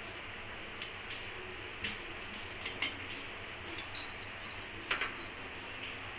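A spoon clinking and tapping against a ceramic bowl while ghee is scooped out of it into a steel kadhai: a handful of short, sharp clicks at irregular intervals over a steady low hiss.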